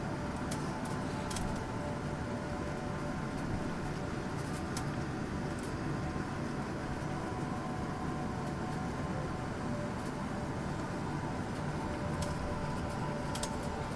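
Steady airliner cabin noise while taxiing: a low rumble under the steady whine of the jet engines, with a few faint ticks.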